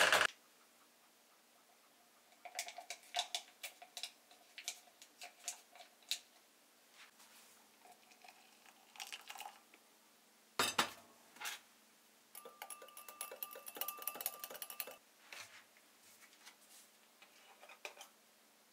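Dishes and utensils being handled: scattered light clinks and knocks, one sharper knock about halfway through, then a few seconds of denser rattling clatter with a faint ring.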